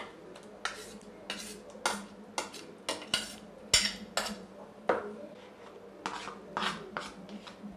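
Metal spoon scraping and tapping ground green paste out of a steel mixer-grinder jar and its plastic lid into a plastic bowl: an irregular run of short clinks and scrapes, roughly two to three a second.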